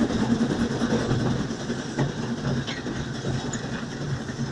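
Cab noise of a Kp4 narrow-gauge steam locomotive under way: a steady running rumble with a few faint clicks.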